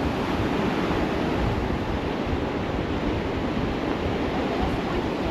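Ocean waves washing onto a beach as a steady rush of surf, with some wind buffeting the microphone.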